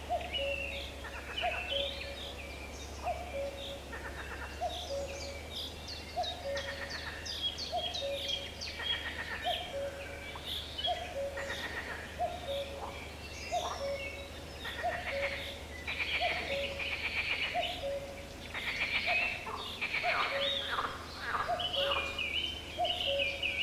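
Wild birds chirping and singing, many quick high chirps and trills, with a low call repeating at an even pace under them.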